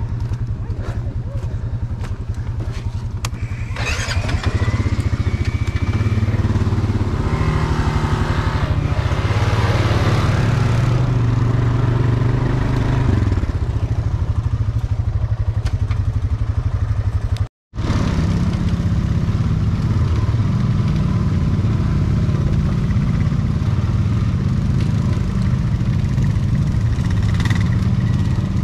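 ATV engine running and driven hard, its steady drone getting louder about four seconds in. A short gap of silence cuts it about two-thirds of the way through, then it carries on.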